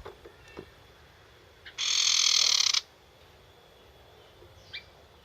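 Young wild sirtu bird giving a harsh rattling call that lasts about a second, with a few faint short chirps around it.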